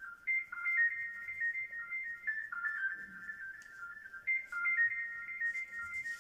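A simple high-pitched electronic melody like a ringtone, a short tune of a few notes repeating about every two seconds.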